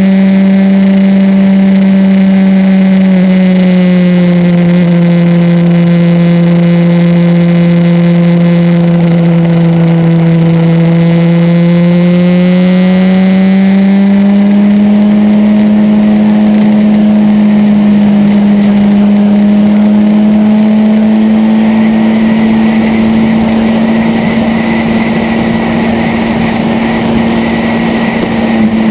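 Motorcycle engine running at a steady road pace, its note dipping a few seconds in and climbing again about halfway through before holding steady. A rushing noise grows under it near the end.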